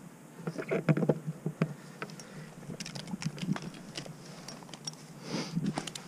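Irregular scraping and knocking of a tree climber's gloved hands and gear against walnut bark, in short clusters, loudest about a second in.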